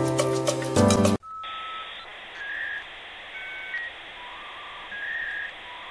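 Background music that cuts off about a second in. A hissy, telephone-like sound follows, carrying a few short electronic beeps at different pitches.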